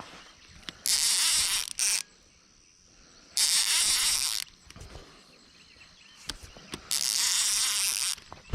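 Fishing reel being cranked in short bursts while fighting a hooked alligator gar: four whirring spells of about a second each, a few seconds apart, with a brief extra crank after the second.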